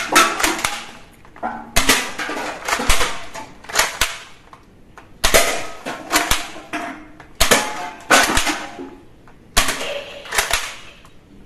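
Toy guns firing: repeated short bursts of sharp shot sounds, each fading quickly, a new burst every second or two.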